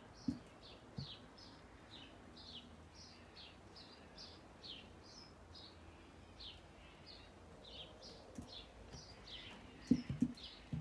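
A bird chirping over and over, short falling chirps about two or three a second. A single low thump just after the start and a quick cluster of low thumps near the end are the loudest sounds.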